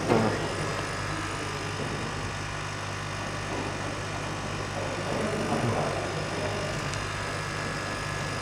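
Steady machine hum of a CO2 laser cutter's exhaust fan running, with a couple of brief louder sounds just after the start and again about five seconds in.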